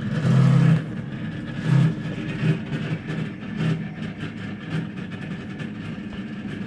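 Frigidaire refrigerator running loudly with a steady low mechanical hum, broken by a few short, louder low surges.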